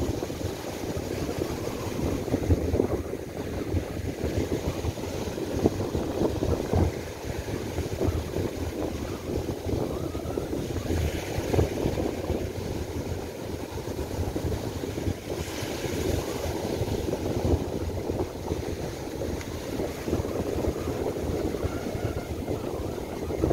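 Strong gusty wind buffeting the microphone, over the rush of surf breaking on the shore.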